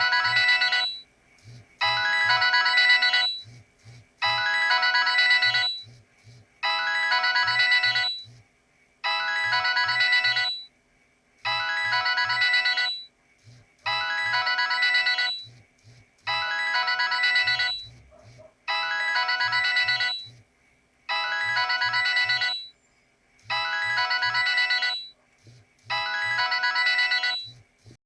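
Nokia 6820 mobile phone ringtone: a short electronic melody of several notes at once, about a second and a half long, repeating over and over roughly every two and a half seconds.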